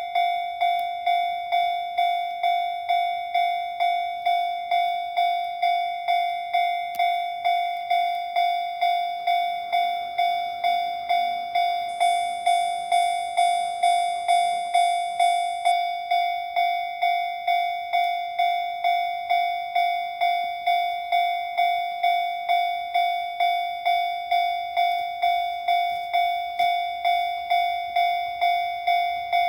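Japanese railway level-crossing warning bell ringing, a single-pitched ding repeating evenly about twice a second.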